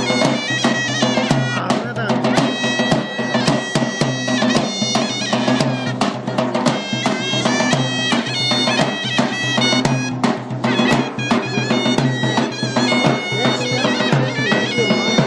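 Zurna and davul playing a lively folk tune: a shrill, ornamented reed melody over sharp drum beats.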